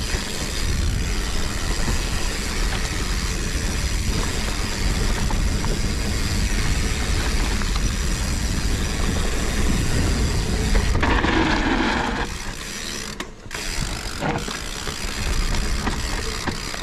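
Mountain bike coasting down a dirt forest trail: the rear hub's freewheel ratchets, over the rattle of the bike and tyres on the ground and wind buffeting the microphone. About eleven seconds in there is a brief louder rush, then the noise becomes quieter and more uneven.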